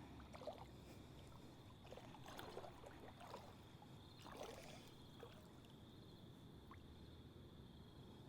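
Faint water sloshing and splashing in a few short bursts during the first half, over a steady faint high-pitched tone.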